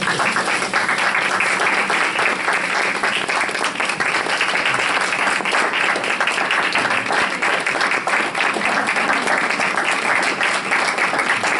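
A round of applause from a roomful of people, many hands clapping at once in a dense, steady patter that begins suddenly and holds throughout.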